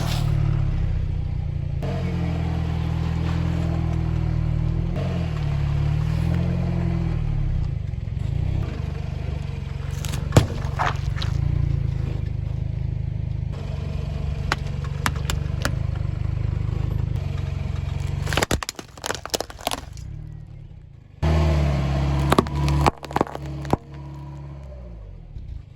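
Car engine running at low speed as the car rolls over objects, with a single sharp pop about ten seconds in, like a liquid-filled balloon bursting under a tyre, and a burst of cracking and crackling from things crushed beneath the wheels near the end.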